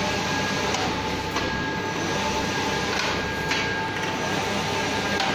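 JNF large-format UV inkjet printer running as it prints: the print carriage travels along its rail with the UV curing lamp lit, giving a steady mechanical whirr with a thin, steady high whine and a few light clicks and knocks.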